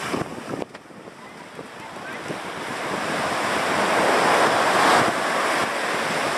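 Ocean surf washing against the shore, with wind buffeting the microphone. The rush drops suddenly a little over half a second in, then builds steadily to a peak about two-thirds of the way through and holds there.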